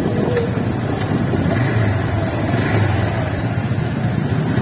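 Motorcycle running on the move, a steady low rumble of engine and road noise picked up by a phone's microphone.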